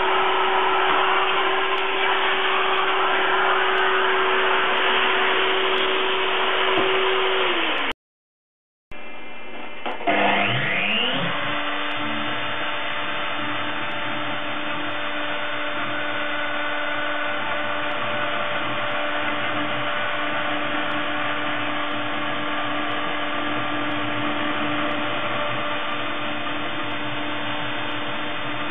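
A vacuum cleaner runs steadily, its tone dropping as it is switched off about seven seconds in. After a brief silence, a small CNC mill's spindle spins up with a rising whine about ten seconds in. It then runs steadily as a 1 mm ballnose cutter makes the finishing pass over a plastic lithophane.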